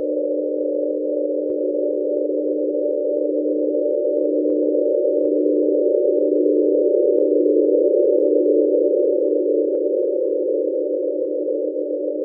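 Electronic drone of several steady pure tones layered together, with the lowest tone pulsing about once a second and a few faint clicks over it: an added eerie sound effect rather than any sound from the scene.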